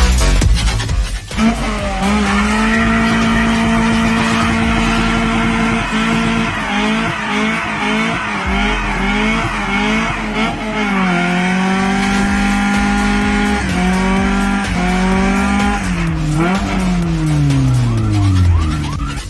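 A car engine revving, its pitch rising and falling over and over and sliding steadily down near the end, with the sound of tyres squealing.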